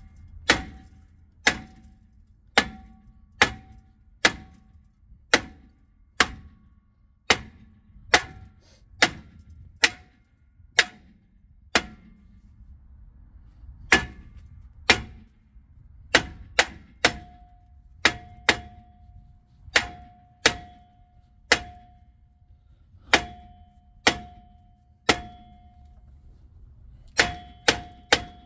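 Hammer blows on a rusted-on rear brake rotor to break it loose from the hub, about one strike a second with a short pause around the middle. Each strike is a sharp metallic clang, often followed by a brief ring from the rotor.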